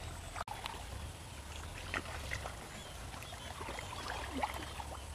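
Soft sloshing and small scattered splashes and drips of shallow muddy water, stirred by someone wading through it and groping in it by hand.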